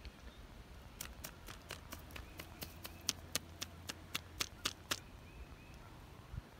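A run of sharp clicks or taps, about four a second, starting about a second in and stopping about four seconds later.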